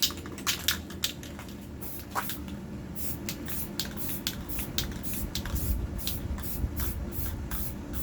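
Aerosol spray paint can hissing in many short bursts, about two to three a second, as paint is sprayed onto concrete.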